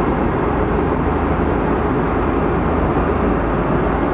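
Steady cabin noise of an Airbus A330-300 in cruise: an even, unbroken rush of airflow and engine noise, heavy in the low end, heard from inside the cabin.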